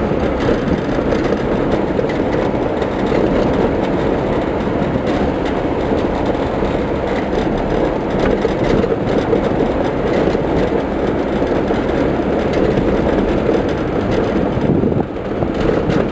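Steady rumble of road and engine noise from a moving vehicle, heard from on board as it drives along a paved road. The noise dips briefly near the end.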